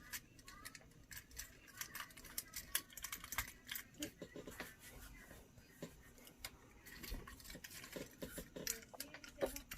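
Plastic parts of a Transformers Studio Series Ratchet action figure clicking and snapping as it is transformed by hand, with irregular light clicks throughout.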